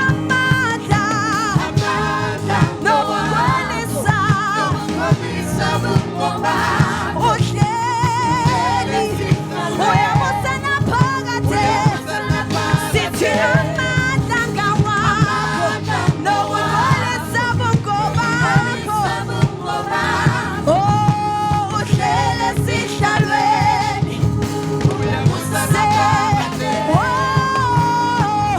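Gospel worship song: singers holding wavering, vibrato notes over a band with a steady beat.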